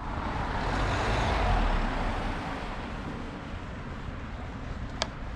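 Steady outdoor rushing noise, like road traffic, that swells over the first couple of seconds and then eases off, with one sharp click near the end.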